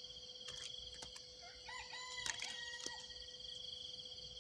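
A rooster crowing once, faint and distant, starting a little under two seconds in, over a steady high-pitched insect chorus and a few light clicks.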